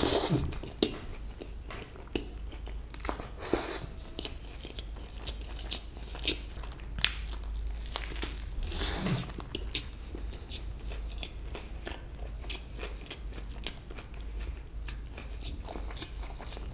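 A person biting into a chicken burger with onion rings and chewing, with crisp crunches and wet chewing clicks. The first bite, right at the start, is the loudest, and big crunches come again about three and a half and nine seconds in.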